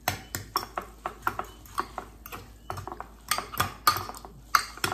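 Metal forks clinking and scraping against glass dishes as sauce-coated instant noodles are lifted and tossed, in quick irregular clicks.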